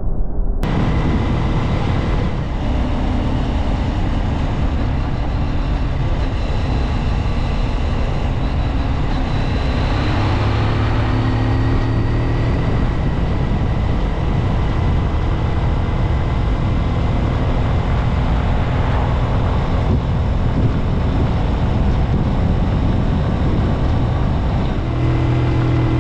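Junak Vintage motorcycle being ridden, its engine running steadily under heavy wind noise. The engine note strengthens for a couple of seconds about ten seconds in and again near the end.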